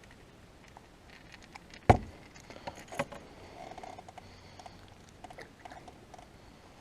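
Handling noises while holding a freshly caught bass and its lure: one sharp knock about two seconds in, then scattered light clicks and taps.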